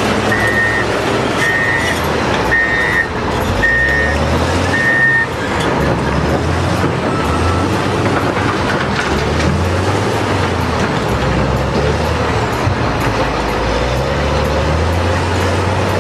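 Heavy diesel earthmoving machines running with a low rumble that rises and falls as they work. A reversing alarm beeps about once a second for the first five seconds, then stops.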